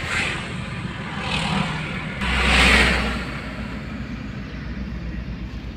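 Car driving along a road, heard from inside the cabin: steady road and engine noise with rushes of passing traffic. The loudest rush comes about two and a half seconds in, and a low engine drone sets in with it.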